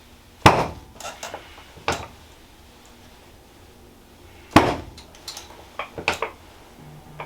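Sharp knocks and clicks as a chiropractor mobilizes and adjusts a patient's knee: two loud knocks about four seconds apart, with lighter clicks and taps after each.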